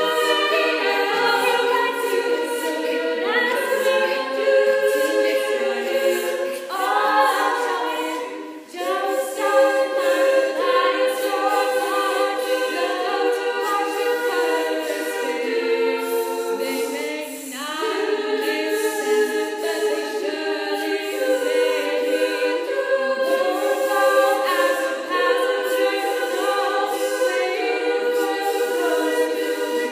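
Group of young women singing a cappella in harmony, holding sustained chords without any instruments, with brief pauses for breath about eight and eighteen seconds in.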